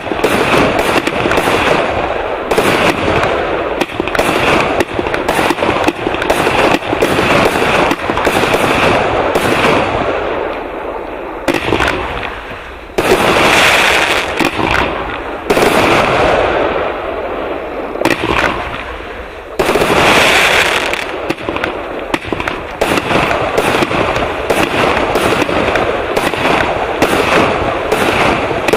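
Gemstone Ruby 88-shot firework cake firing: a rapid, dense run of shots and bursts. About halfway through, two stretches give way to a steady, dense hiss.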